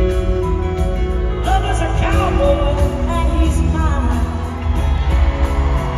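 Live country band with guitars playing a song, and a woman singing lead over it from about a second and a half in.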